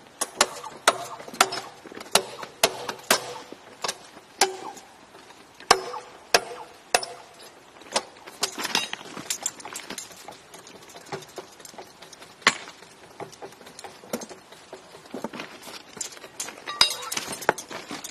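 Sharp metallic knocks and clinks of a steel hand hammer and tools on a steel rail and its clamp fittings, each strike ringing briefly. They come in an irregular run of about a dozen blows in the first seven seconds, then a lone knock, then another cluster near the end.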